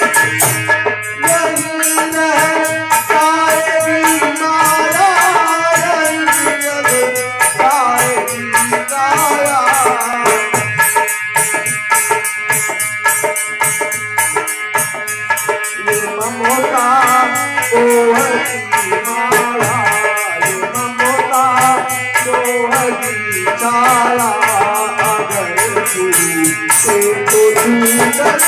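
Indian folk music with fast dholak drumming and a jingling, rattle-like percussion, over a wavering melody line.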